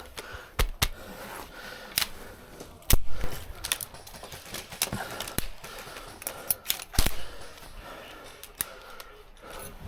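Scattered airsoft gunfire: a dozen or so sharp single snaps at irregular intervals, the loudest about three seconds in and about seven seconds in.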